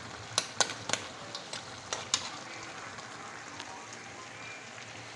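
Metal spatula stirring whole crabs in a pot of coconut-milk sauce, scraping and clacking against the pot and crab shells in a handful of sharp clicks during the first two seconds or so. Under it runs a steady hiss of the pot cooking.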